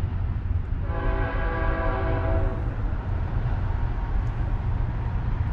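BNSF freight locomotive's air horn sounding one blast of about two seconds, several tones together, about a second in, over a steady low rumble.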